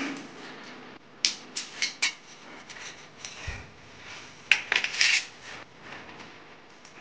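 Aluminum bar stock and metal snips being handled, a series of sharp metallic clinks and clicks with a dull thump near the middle.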